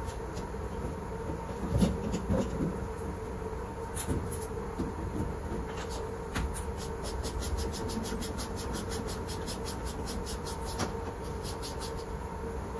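Steady hum of laundry-room machinery, with a few metal knocks and clatter about two seconds in as the dryer's lint filter is handled. A rapid run of faint ticks comes in the middle.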